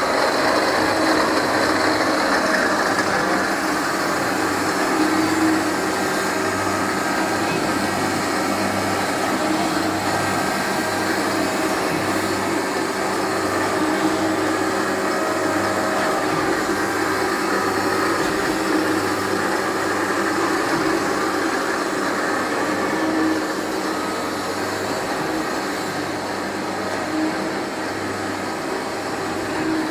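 A 3L722V surface grinding machine running: its motors and horizontal spindle make a steady mechanical hum with several steady tones over a noisy whir.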